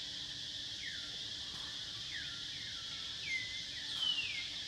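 A steady high-pitched drone of insects in the forest, with a string of short falling whistled calls over it; the longest and loudest comes near the end.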